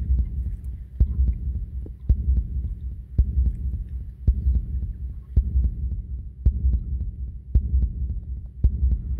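Regular heavy footfalls, a knock about once a second over a low rumble, jolting a body-worn microphone while walking.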